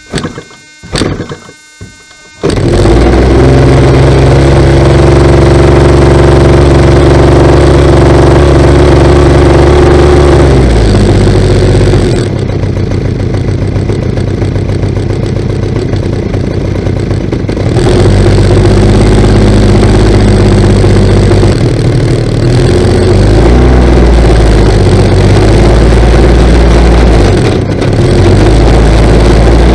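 DLE 30 single-cylinder two-stroke model-aircraft gas engine being hand-started by flipping the propeller with the choke off. A few sharp flip strokes come first, then it catches about two seconds in and runs loud and steady. It drops to a lower, quieter idle from about ten to twelve seconds in and picks back up at about eighteen seconds.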